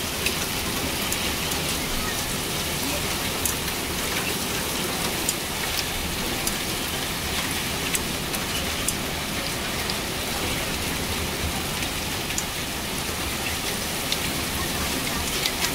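Heavy rain with hail falling on a paved surface: a steady hiss of rain with scattered sharp ticks of hailstones striking.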